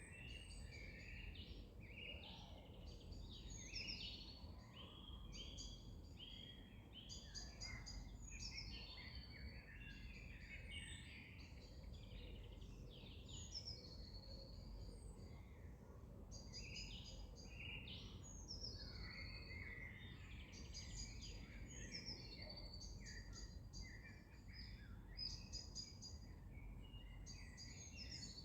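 Several songbirds singing over one another: quick high trills, falling whistles and short chirps, repeated all through. It is faint, over a low steady rumble.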